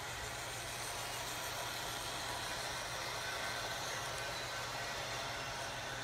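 Model train running on its track as it approaches: a steady whirring hiss of motor and wheels over a low hum, growing slightly louder, with a faint high-pitched whine coming in about halfway.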